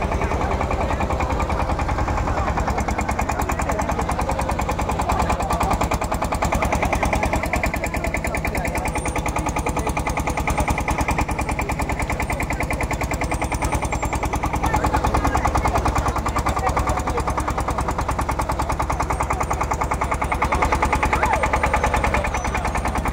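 Engine running with a rapid, even chugging beat that holds steady without a break.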